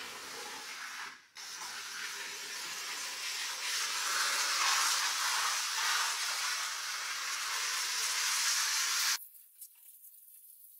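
Hose-fed spray gun hissing steadily as it sprays at a stone wall, with a short break about a second in; the spray cuts off abruptly near the end.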